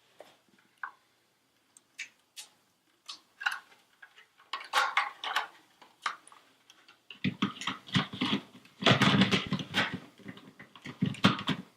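Small plastic clicks and knocks of a smoke detector being handled as a new battery is fitted and the unit is closed up. Scattered single clicks at first, then denser knocking and rubbing that is loudest about seven to ten seconds in.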